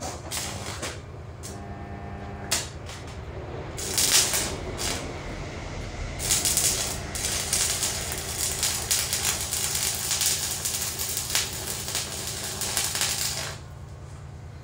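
Stick (arc) welding: the electrode is struck about four seconds in, sputters briefly, then the arc crackles steadily for about seven seconds while a weld bead is laid, and cuts off suddenly near the end. A steady low hum sits underneath.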